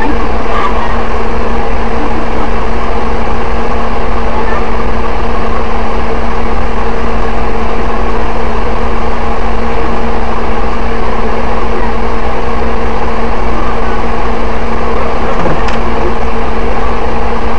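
Steady, loud hum and noise of a car engine idling, picked up by a dash camera inside the car.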